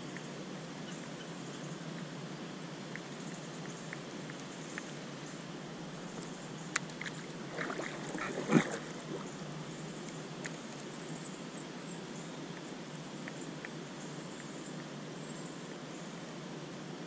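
Kayak paddle being handled: a short run of knocks and clatter against the kayak about eight seconds in, the loudest a single sharp knock, over a steady low background hiss.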